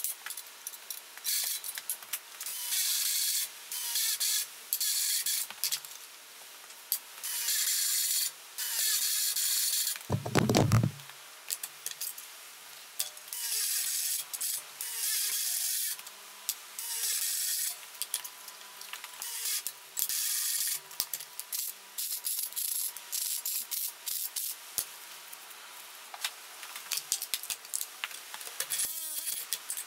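Cordless drill cutting holes through a steel strip, in repeated bursts of a second or two with short pauses between, making the holes for a row of dimple-die holes. About ten seconds in there is one louder whir that falls in pitch.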